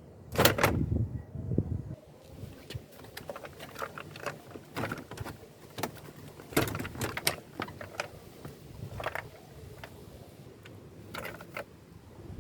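Irregular clicks, clinks and knocks of tools and metal parts being handled while a car's steering system is taken apart, the loudest about half a second in and again around the middle.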